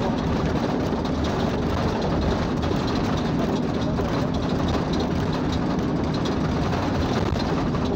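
Steady engine and road noise of a moving vehicle heard from on board, an even rushing sound with a constant low hum.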